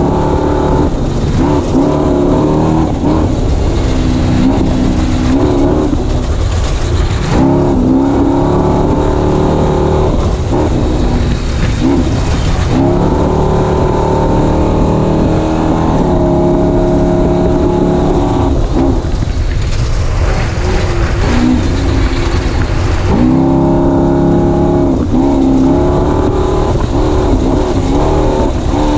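Off-road race vehicle's engine heard onboard at speed, repeatedly revving up in pitch and dropping back as it shifts or lifts off every few seconds, over a continuous heavy rumble of the drive over rough ground.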